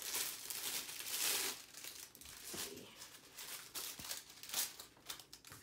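Clear plastic wrapping crinkling as it is handled and pulled off a spiral-bound photo album, loudest in the first second or so, then lighter rustles with a few sharp clicks.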